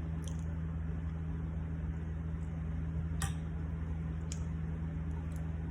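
Steady low hum with a few faint short clicks, the clearest about three seconds in.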